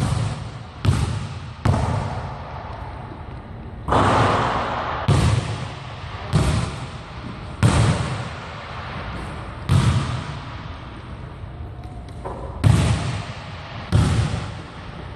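Basketball bouncing on a hardwood gym floor, about ten single bounces spaced one to two seconds apart, each echoing in the large hall.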